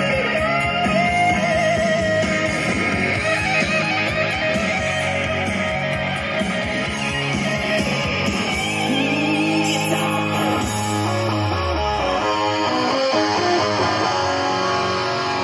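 Rock music with electric guitar playing from a Panasonic RX-5150 boombox tuned to an FM stereo station, with a bass note sliding down near the end.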